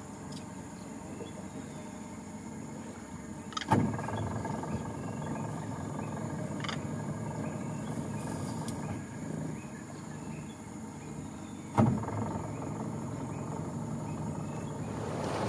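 A boat's motor idling with a steady low rumble, under a thin high drone of insects, with two sharp knocks about eight seconds apart.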